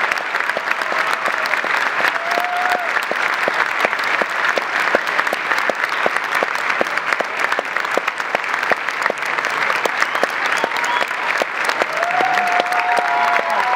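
Audience applauding steadily, with a few voices calling out about two and a half seconds in and again near the end.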